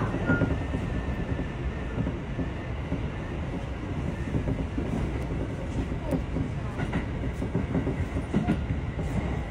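Electric train running along the track, heard from inside the driver's cab: a steady low rumble of wheels on rail, with a few sharp wheel clicks in the second half.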